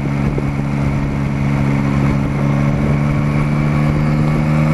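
Yamaha Tracer motorcycle engine running steadily at about 40 km/h, heard from the rider's helmet camera with wind and road noise over it; the engine note rises slightly near the end.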